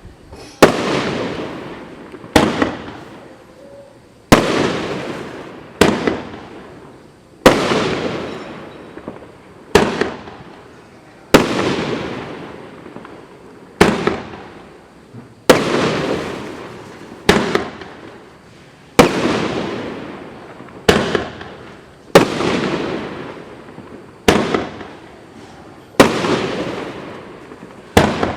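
Dominator 'American Power' 500-gram firework cake firing a steady volley of shots. About one loud bang every one and a half to two seconds, each trailing off in a fading rumble.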